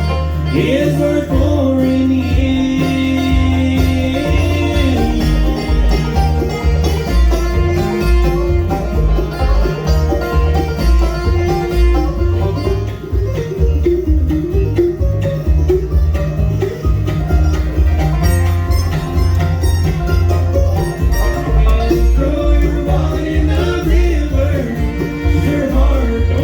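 Bluegrass band playing an instrumental break, with the banjo picking out the lead over guitar and a steady bass line.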